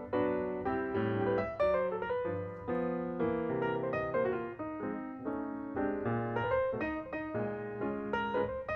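Background piano music: a steady flow of struck notes and chords, each note ringing and fading.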